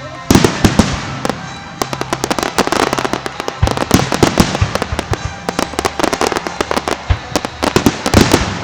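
Fireworks going off in a dense, continuous barrage of bangs and crackling reports, opening with a loud burst just after the start.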